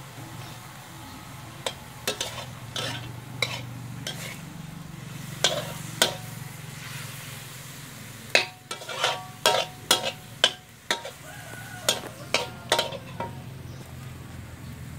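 Metal spatula scraping and knocking against a metal wok as pieces of meat are stir-fried over a wood fire, with a steady frying sizzle underneath. A few scattered strokes come first, then a quick run of scrapes in the second half.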